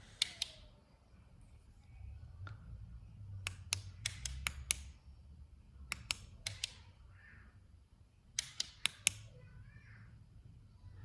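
Flashlight power switches clicking on and off in quick clusters of two to five sharp clicks, several times over, with faint handling rumble between.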